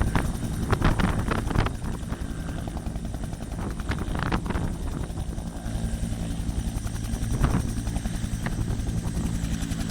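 Helicopter running close by: a steady rotor beat under a thin high turbine whine, with a few sharper rushes of noise in the first couple of seconds.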